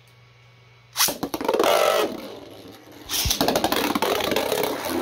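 3D-printed Beyblade tops launched with ripcord launchers into a plastic stadium: a sudden whirring rush about a second in, then a second loud stretch of rapid clattering as the spinning tops collide with each other and the stadium walls.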